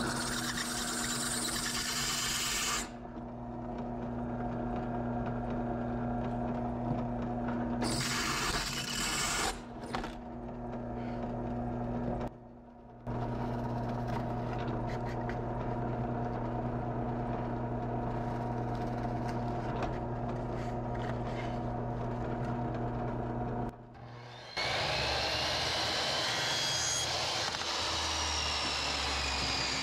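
A drill press runs with a steady motor hum while a cobalt bit drills through the very hard steel of a chainsaw bar, in bursts of grinding noise. After a short break it drills 1/4-inch plywood. Near the end a miter saw starts up and runs, with a gliding whine.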